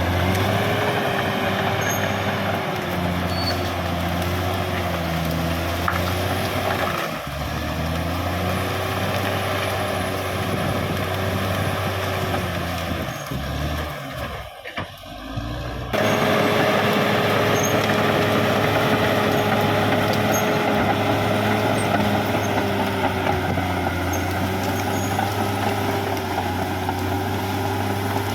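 Caterpillar D6R XL bulldozer's diesel engine running, its pitch wavering up and down with the load. The sound dips briefly and then shifts abruptly about sixteen seconds in.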